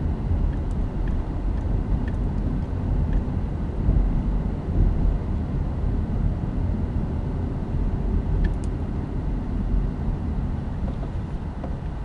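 Low, steady road and engine rumble of a moving car, heard from inside the cabin, growing a little quieter near the end.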